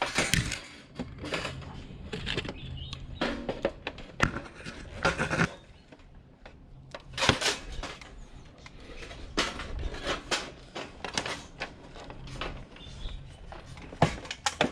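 Irregular clicks, clinks and rattles of small screwdrivers and handling on the plastic and metal parts and wiring of an electric tower heater being taken apart.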